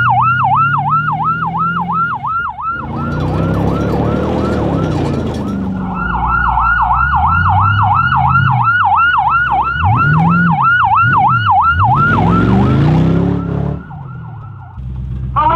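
A police car's siren sounding in a fast yelp, rising and falling about four times a second; it drops away for a few seconds near the start and again near the end. Underneath, the car's engine revs up and down and its tyres run over dirt.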